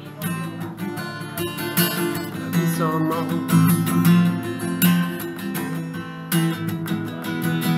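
Acoustic guitar strummed, chords ringing on in an instrumental passage with no sung words.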